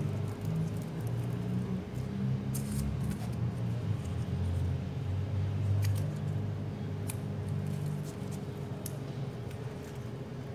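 Hands handling copper winding wire and insulation paper on an electric motor stator, with a few light clicks, over a steady low hum.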